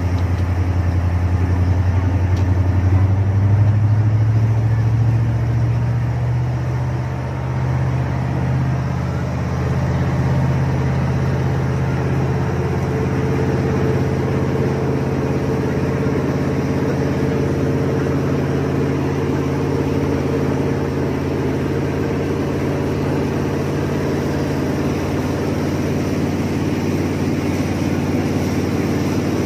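Jet boat engine running steadily at speed. Its pitch rises about three seconds in and then holds steady.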